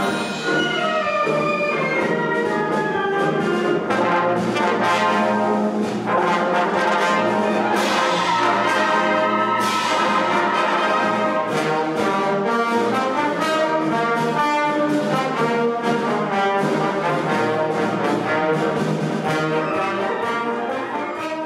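Symphonic wind band playing: brass and woodwinds together in a full, loud passage, beginning to fade near the end.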